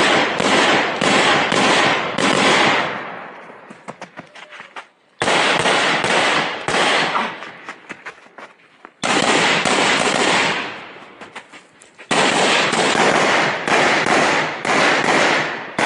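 AR-15 rifle fired in quick semi-automatic strings, several shots about half a second apart, each string ringing off in echo. Four strings with pauses of about two seconds between them, as the shooter moves from target to target during a timed stage.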